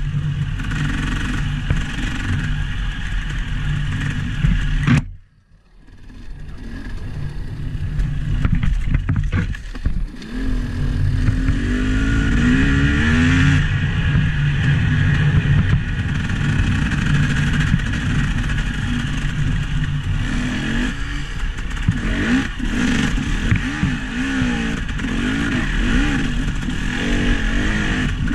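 Vehicle engine running, its pitch rising and falling as the revs change. The sound cuts out abruptly about five seconds in and builds back over the next few seconds.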